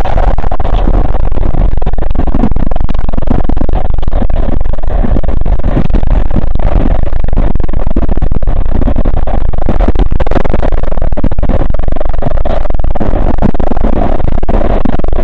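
Loud, steady rumble and roar of a SEPTA Market–Frankford Line subway car running at speed through a tunnel, heard from inside the car: wheels on rails and tunnel noise with no let-up.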